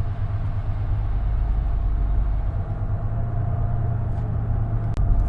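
Bus engine running steadily, a low rumble with no change in speed.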